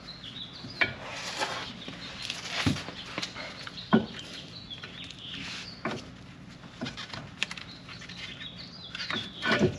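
Old brake pad being wiggled out of a brake caliper: irregular metal scraping, clicks and clinks as the pad and its backing plate rub and knock against the caliper.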